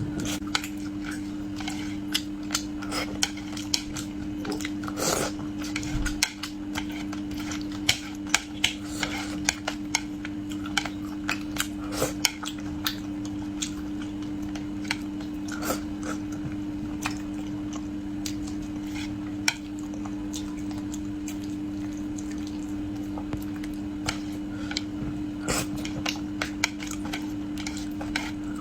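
Eating utensils clicking and tapping against dishes at irregular intervals while fish is eaten, over a steady low hum.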